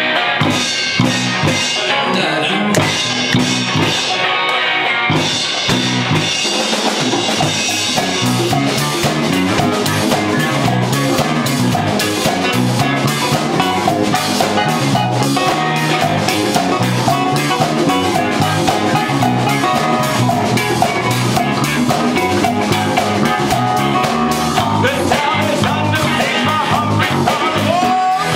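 Funk band playing live: drum kit, congas, electric guitar and bass guitar locked in a steady groove. The sound fills out about eight seconds in.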